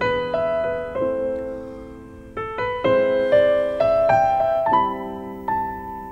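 Slow background piano music: a melody of single struck notes, each fading away, over lower held chords.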